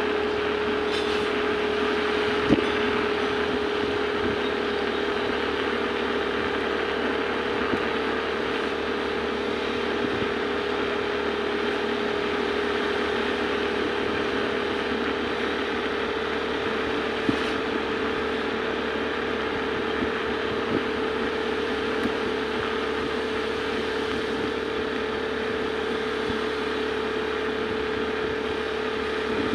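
A steady machine hum with one constant mid-pitched tone, and a few faint clicks here and there.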